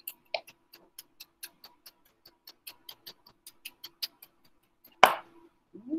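Chef's knife rock-chopping celery leaves on a cutting board, the tip kept on the board: quick, even taps of the blade, about four to five a second, then a single louder knock about five seconds in.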